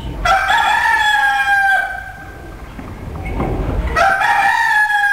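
Rooster crowing twice: a long call just after the start and another about four seconds in, each held for about a second and a half and dropping slightly at the end.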